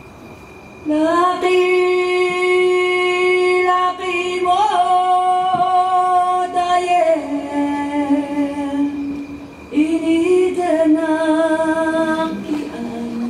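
A single voice singing long held notes in two phrases. The first begins about a second in and steps down to a lower held note around seven seconds; the second begins near ten seconds. A faint steady high whine runs underneath.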